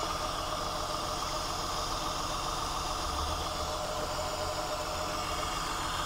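Six-cylinder car engine idling steadily with the hood open.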